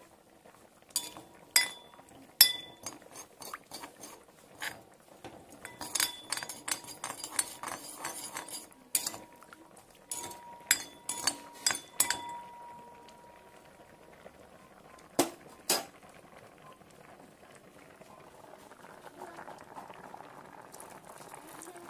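A metal spoon clinks and scrapes against a stainless steel plate, with many quick strikes that ring, as dry fish is mashed into hot water. Two sharp knocks follow, and a faint liquid sound comes near the end.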